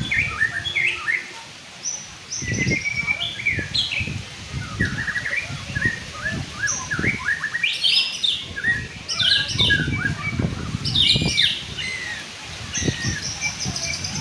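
White-rumped shama (murai batu) singing: a long, varied run of quick whistles, chirps and trills that changes phrase every moment. Low knocks and rumbles sound underneath at times.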